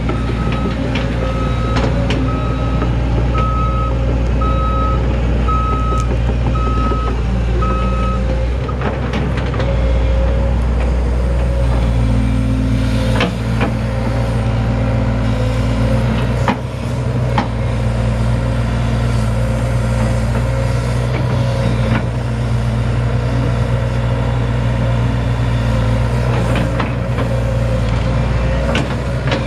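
The Isuzu four-cylinder turbo diesel of a 2005 JCB JS160NC excavator runs steadily while the machine works its boom and bucket. A warning alarm beeps at an even pace, about one and a half beeps a second, through roughly the first eight seconds. A few sharp knocks come around the middle.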